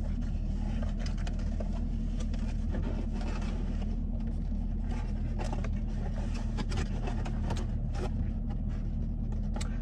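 A parked car's engine idling, a steady low hum heard inside the cabin, with scattered light clicks and rustles of takeout containers and bags being handled.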